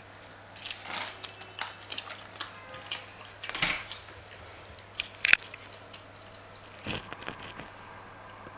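Sphynx cat chewing a raw day-old chick, with irregular wet crunches and clicks as its teeth break through the chick.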